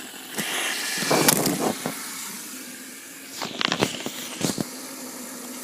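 Fidget spinners whirring after being flicked into a spin, with a few sharp clicks and knocks from handling.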